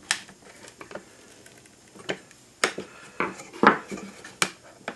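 Light, sharp clicks and knocks of a hand screwdriver and small wooden parts being handled as a solar light is fitted onto a wooden lantern top, about six separate taps, the loudest near the end.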